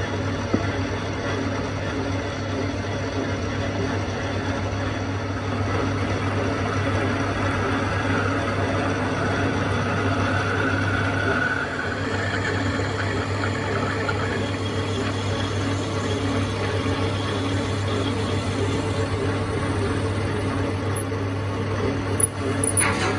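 Machine tool in a metalworking shop running steadily with a deep hum, a faint whine rising and fading around the middle, and a short clatter near the end.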